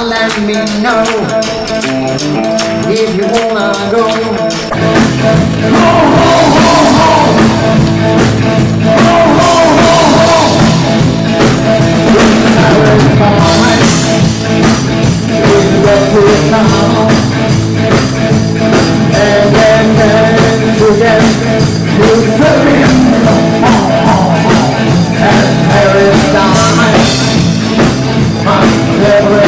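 Live blues-rock band playing through a PA: electric guitars, drum kit and a male singer. The full band, with heavy low end, comes in about five seconds in and plays on steadily.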